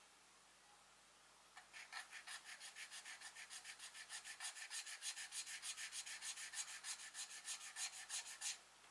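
A small wooden hexagon tile being sanded to fit, rubbed back and forth on sandpaper in quick, even strokes, about six a second. The strokes start about a second and a half in and stop near the end.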